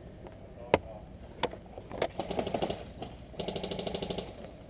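Airsoft guns firing: a few sharp single shots, the loudest about a second in, then two short full-auto bursts from electric airsoft rifles at about a dozen rounds a second, the second lasting about a second.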